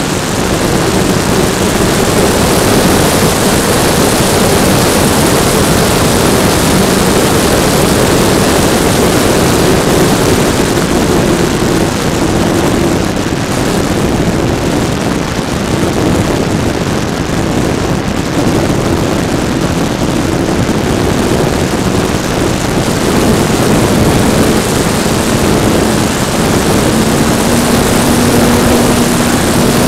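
Electric motor and propeller of a model PT-17 Stearman biplane running in flight, heard from a camera on the plane under heavy wind rush; the motor's pitch wanders slightly and rises a little near the end.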